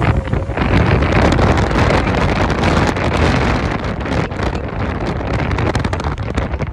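Loud wind buffeting the microphone of a phone carried by a passenger on a moving motorcycle, a steady rush with a gusty flutter.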